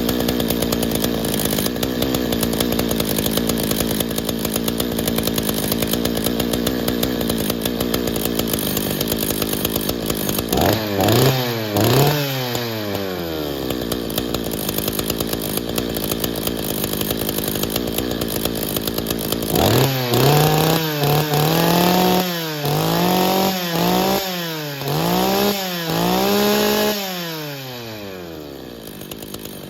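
1983 Husqvarna 61 two-stroke chainsaw idling steadily, then revved twice in quick blips about ten seconds in. About twenty seconds in it is revved again in a run of about six blips to high speed before dropping back to idle near the end; the owner judges it may be running a little rich on the high side.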